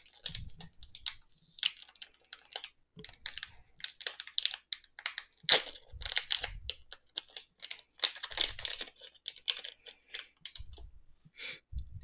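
Anti-static plastic bag crinkling and rustling in the hands as it is worked open to take out a small circuit board, in irregular crackly bursts, with a few soft low bumps from handling.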